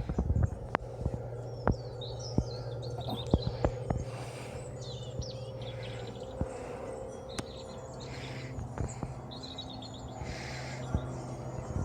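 Small birds chirping in short, quick phrases every second or two, over a steady low hum, with scattered sharp clicks.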